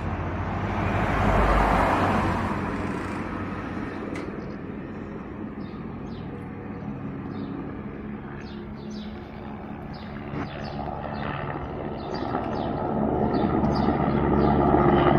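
Helicopter's engine and rotor giving a steady low drone. It swells briefly about a second in, eases off, then grows louder over the last few seconds. It is the machine that carries felled timber off the mountainside. Small birds chirp now and then.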